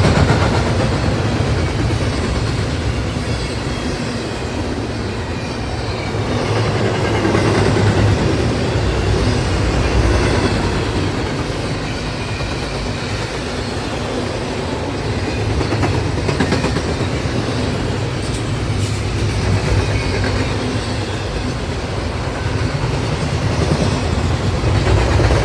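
Double-stack intermodal container well cars of a freight train rolling past, with the steady noise of steel wheels on rail that swells and eases in loudness.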